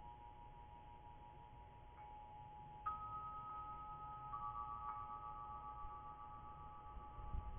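Electronic doorbell chime sounding long, steady ringing tones. A higher note joins about three seconds in and another a little later, over a faint low rumble.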